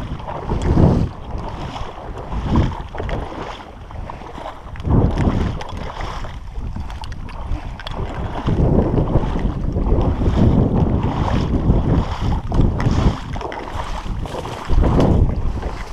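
Wind buffeting the microphone in gusts: a low, rumbling rush that swells and eases every second or two.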